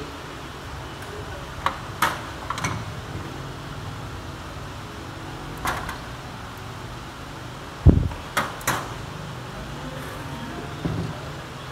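Parts of a dismantled automatic transmission clinking and knocking against each other and the steel bench top as they are pulled out by hand: about eight sharp knocks, the heaviest a dull thump about eight seconds in.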